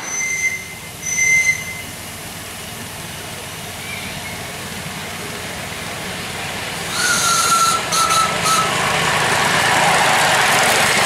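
5 inch gauge live-steam model of a Southern Railway Class L1 4-4-0 locomotive running along a miniature railway track and coming closer, growing louder from about seven seconds in. Two short high-pitched tones sound near the start, and a few more short tones come as it nears.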